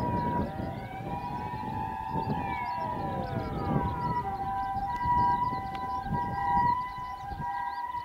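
Japanese doctor car's emergency siren: a rising and falling wail for the first few seconds, switching about halfway through to a steady high-low two-tone alternation.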